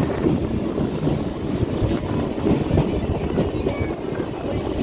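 Steady low rumble of a moving train, with wind buffeting the microphone.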